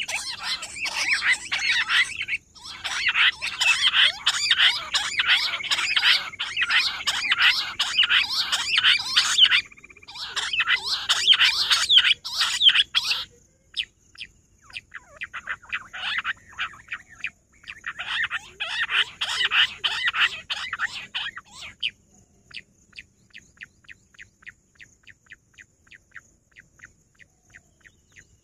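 Rock bush quail calling: long, loud runs of rapid, short whistled notes. The runs break off about 13 seconds in, return in two shorter bouts, and then fade to fainter, spaced notes near the end.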